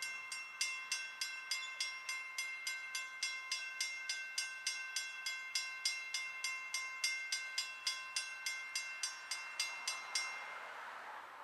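Railroad grade-crossing warning bell ringing in an even, rapid rhythm of about three strikes a second. It stops about ten seconds in, leaving a faint hiss.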